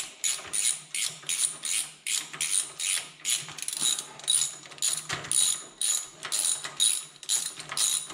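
Short socket ratchet clicking steadily as it runs half-inch bolts down on a John Deere B power lift housing, about two or three even clicks a second.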